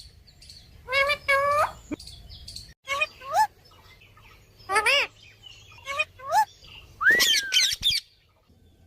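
Pet parakeet vocalizing: a series of short whistled, speech-like calls, mostly in pairs, then a longer call with a swooping dip in pitch near the end.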